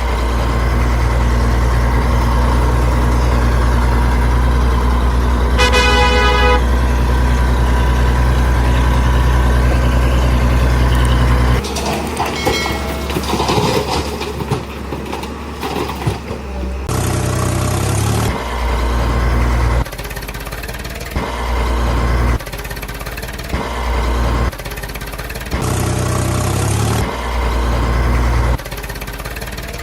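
Heavy truck engine running with a steady low rumble, with one short horn toot about six seconds in. From about halfway on the engine sound cuts in and out every second or two.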